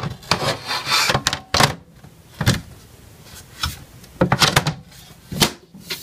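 The aluminium side panel of an Early-2006 Mac Pro being fitted back onto the case: metal scraping and rubbing, broken by a series of sharp clunks and clicks as the panel is set into place.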